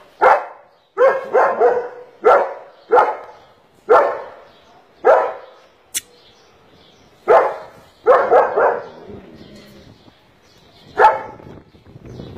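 German shepherd barking: about a dozen barks at irregular intervals, some coming in quick runs of two or three. A single sharp click sounds about six seconds in.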